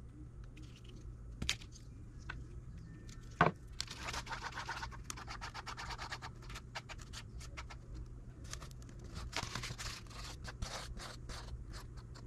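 Small wooden stick scraping and scratching across cardboard in quick, rapid strokes as two-part epoxy is stirred, starting about four seconds in. Before that there are a few light clicks and one sharp knock.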